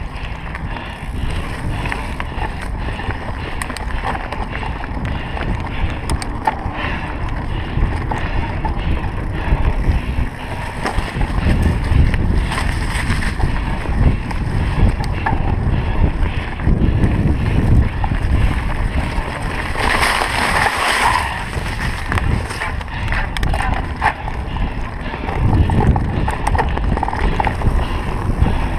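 Mountain bike riding down a dirt trail: a steady rush and tyre rumble with frequent rattles and clicks from the bike, and a short louder hiss about twenty seconds in.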